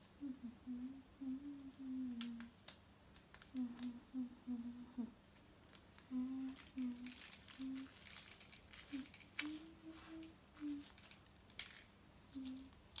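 A girl humming a tune to herself in short low notes. About two thirds of the way through comes a spell of crinkling and clicking from a small plastic packet of beads being handled.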